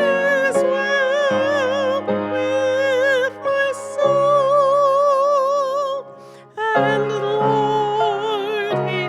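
A hymn sung by voices with a wide vibrato over piano accompaniment, in long held notes, with a short break between phrases about six seconds in.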